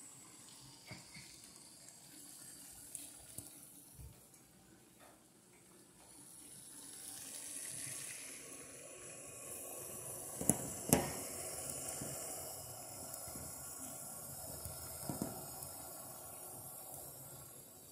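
Water at a rolling boil in a glass saucepan on an electric coil burner, bubbling and hissing, growing louder about six seconds in. A little past the middle come two sharp clicks close together, the loudest sounds, with a few fainter ticks elsewhere.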